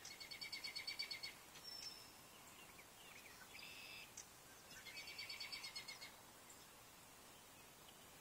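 Faint songbird singing: two quick trilled phrases of repeated high chirps, each about a second long, one at the start and one about five seconds in, with a few single chirps between.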